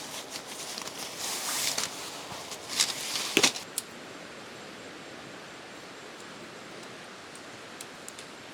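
Rustling and handling noise for the first few seconds, with a couple of sharp clicks about three seconds in, then a steady, even hiss.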